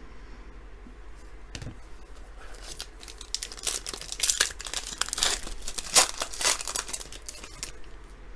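A plastic-wrapped Panini Prizm football hobby pack crinkling and being torn open, with a run of sharp crackles that starts about two and a half seconds in and is loudest around six seconds in.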